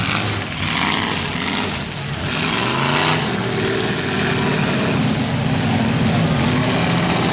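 Several demolition derby cars' engines running and revving, their pitch rising and falling over a loud, steady din.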